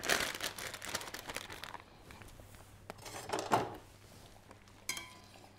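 Plastic vacuum-seal bag crinkling and rustling as it is handled and turned over. The crinkling is busiest in the first second and a half, then dies down to faint handling noise.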